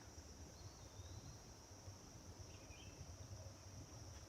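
Faint steady chorus of insects such as crickets, one high even trill, over a low rumble, with a couple of faint short chirps about half a second and two and a half seconds in.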